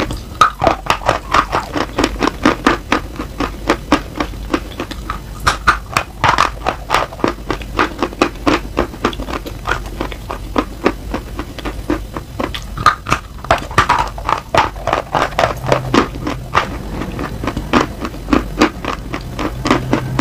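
Close-miked crunching of a piece of edible chalk being bitten and chewed: many crisp, irregular crunches, several a second.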